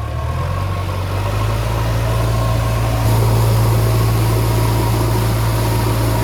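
Heavy diesel engine running steadily with a deep hum, a little louder from about three seconds in.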